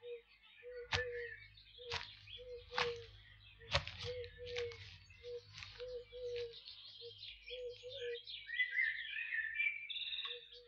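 Birds chirping and twittering, with a short lower note repeating about once or twice a second beneath them and a few sharp clicks in the first four seconds.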